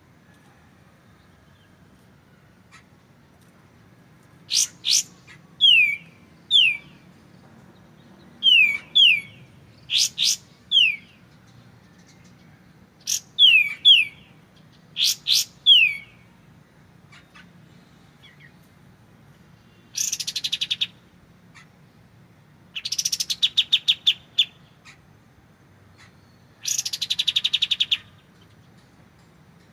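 Kapas tembak (katem) songbird calling: sharp paired chip notes, each followed by a quick downward-sliding whistle, repeated in short phrases, then three rapid rattling trills a few seconds apart, with quiet pauses between.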